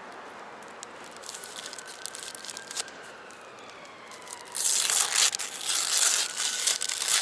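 A kebab's wrapper crinkling and tearing as it is handled. It is faint and sparse at first, then loud, busy crackling from about halfway through.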